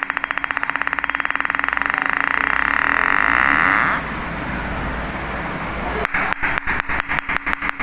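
Metal ball bouncing on a hard surface: rapid clicks come quicker and quicker until they stop about four seconds in. After a short hiss, a fresh drop starts about six seconds in, with widely spaced bounces that speed up again.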